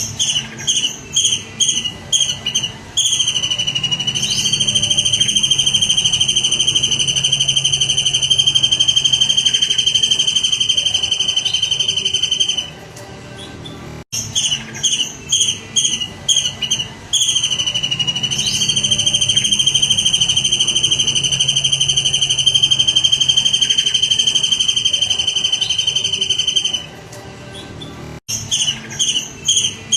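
Looped songbird song for masteran training: a quick run of short sharp chirps, then one long high, unbroken trill lasting about nine seconds, the whole phrase repeating twice.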